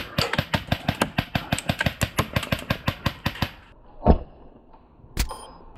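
Wolverine MTW HPA airsoft rifle firing a rapid string of shots, about eight a second, for roughly three and a half seconds. A loud thump follows about four seconds in, and a single sharp click near the end.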